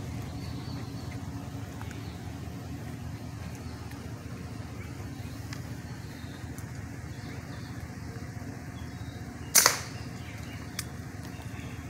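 A single shot from a .22 Brocock Concept Lite PCP air rifle, one sharp crack about nine and a half seconds in, over a steady low hum.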